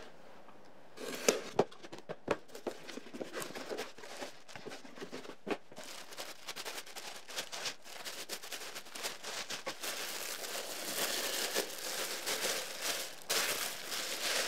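Packing paper rustling and crinkling as a wine glass is unwrapped from it, growing louder and denser in the second half, after a few sharp knocks from handling the cardboard box in the first couple of seconds.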